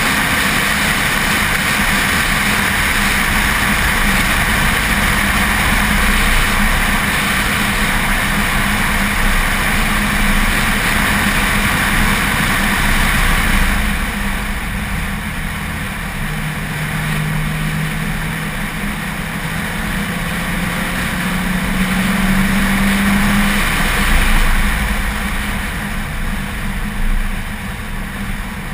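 Racing car driven hard on track, heard through a car-mounted camera: a constant rush of wind and tyre noise over the engine. In the second half the engine note climbs steadily for several seconds, then drops back as the driver shifts or lifts.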